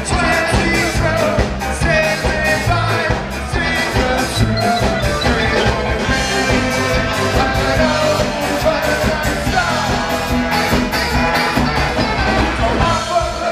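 Live ska band playing loud amplified music with electric guitars, bass, drums and saxophone, keeping a steady beat throughout.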